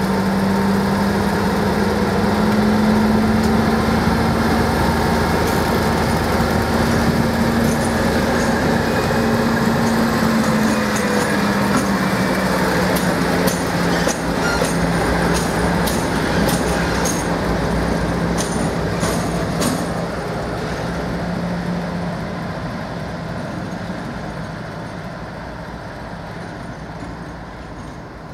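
Class 56 diesel locomotive's Ruston-Paxman 16-cylinder engine running as it moves slowly past, its pitch rising a little and then easing back. A run of sharp metallic clicks from the wheels on the track comes as it passes closest. The engine fades as it moves away near the end.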